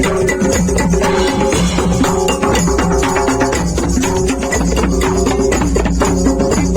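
Music with a steady percussive beat of drums and wood-block-like strikes under pitched instrumental lines.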